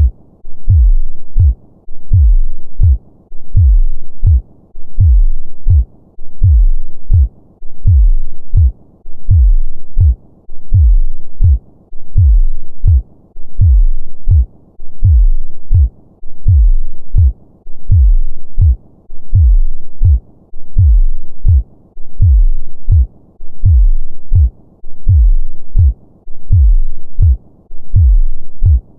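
A normal human heartbeat: a steady, slow lub-dub, a double low thump repeating a little less than once a second.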